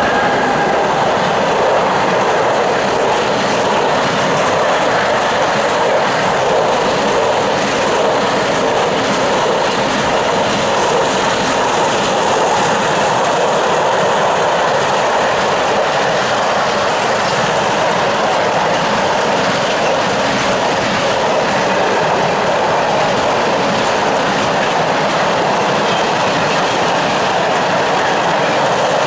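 Container wagons of a freight train rolling past close by at speed: a steady, loud rolling noise of steel wheels on the rails, with frequent clicks from the wheels.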